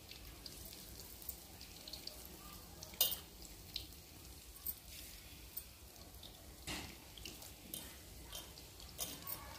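Battered vegetable pakoras frying in hot oil in a kadhai: a soft sizzle with irregular crackles and pops, and a sharper crack about three seconds in and again near seven seconds.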